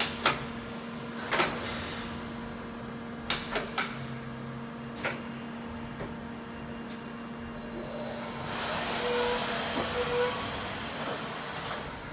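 Wind 100 V CNC machining centre running with a steady hum, sharp clicks and knocks every second or two, then a hiss that starts about eight seconds in and lasts about three seconds.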